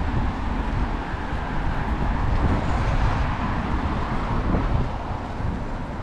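Steady road traffic noise from cars on the road beside the pavement, with wind rumbling on the microphone.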